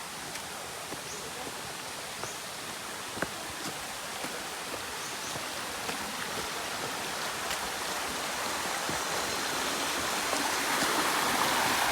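Steady rushing of a stream, growing louder near the end, with a few light ticks and faint short high chirps.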